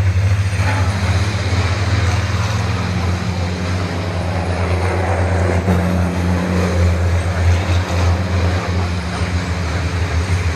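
Racing trucks' big diesel engines running with a steady low drone, over a haze of track noise.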